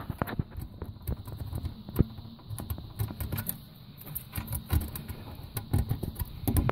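Irregular clicks and knocks of circuit boards being handled and pushed into a fruit machine's board rack, as the sound card is refitted.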